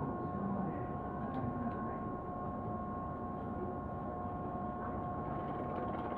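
Interior of a Tobu Urban Park Line commuter train car waiting to depart: a steady electrical hum with two unchanging tones over a low rumble of the car's equipment, with a few faint clicks.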